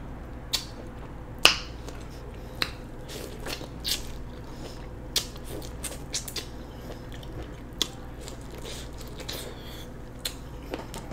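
Biting kernels off a sauce-coated corn on the cob and chewing them, heard as scattered short crisp clicks and smacks.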